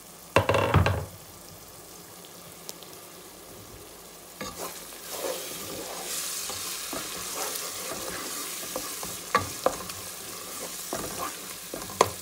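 Chopped onions and ginger-garlic paste frying in oil in a large pot, sizzling while a wooden spoon stirs them and taps against the pot. A brief loud clatter comes about half a second in, and the sizzling grows louder from about four seconds on.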